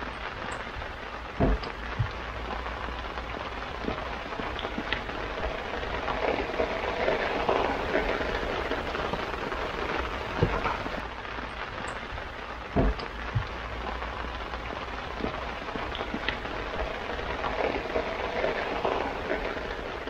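Rain falling on a sailboat, a dense steady patter that swells and eases, with a few sharp knocks standing out.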